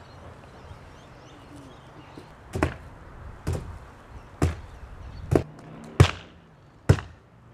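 Steel hand tampers pounding earth-filled bags to compact them: six heavy thuds about one a second, starting about two and a half seconds in.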